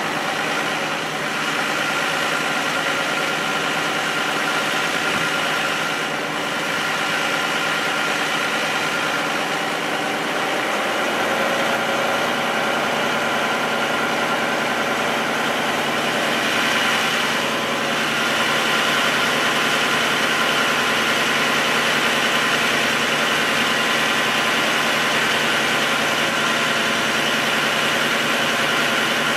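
A motor or engine running steadily, with several held tones; its pitch shifts about ten seconds in and it gets a little louder near eighteen seconds.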